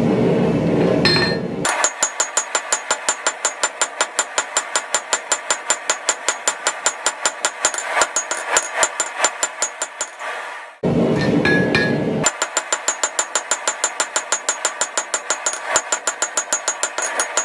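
Hand hammer striking a red-hot steel knife blade on an anvil in quick, even blows, about five a second, each with a bright metallic ring. The run of blows is broken twice by a second or so of steady rushing noise, at the start and about eleven seconds in.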